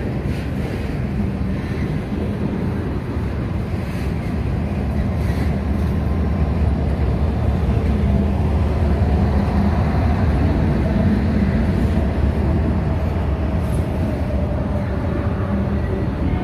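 Freight train of autorack cars rolling past on the rails with a steady low rumble. A diesel locomotive placed mid-train goes by about halfway through, and the sound swells with its engine before easing again.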